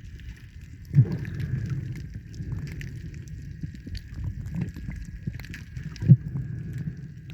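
Water noise picked up by a camera filming in the sea over a coral reef: a steady low rumble with scattered faint clicks and a thin steady high tone. Two sharp thumps stand out, one about a second in and one near six seconds.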